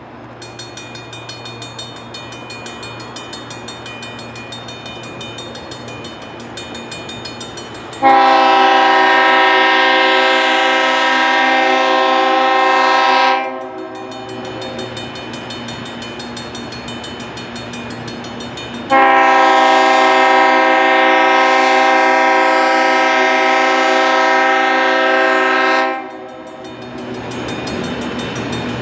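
Leslie RS-5T five-chime air horn on an ALCo S-4 diesel switcher, sounding two long, very loud blasts (about five and seven seconds) of the grade-crossing warning as the locomotive approaches. A grade-crossing bell rings steadily underneath, and the locomotive grows louder as it nears.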